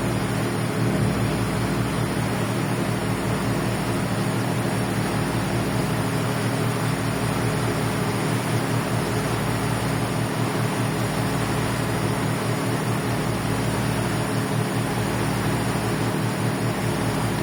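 Ferry's engines running with a steady low drone, under an even hiss of wind and water.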